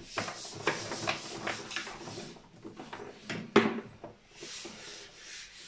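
Electrical cables being handled and pulled at a consumer unit, rubbing and scraping against the plastic enclosure and the cupboard, with irregular small knocks and one sharper knock about three and a half seconds in.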